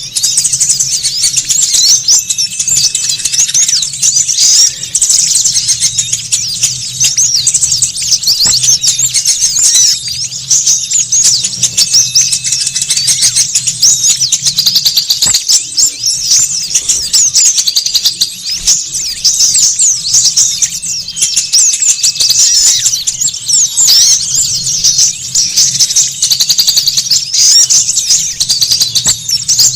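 Dense, unbroken chorus of many small songbirds chirping and twittering rapidly, high-pitched: a bird-trapping lure recording of small birds calling noisily. A faint steady low hum runs underneath.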